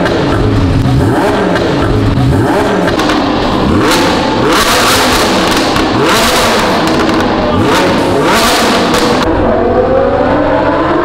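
Lamborghini Huracán LP610-4's V10 engine through a valvetronic catback exhaust, blipped repeatedly in the rising-and-falling pattern of free revving. The exhaust valves are shut at first and then opened, with several loud rev bursts between about four and nine seconds in. Near the end the engine note rises steadily as the car accelerates.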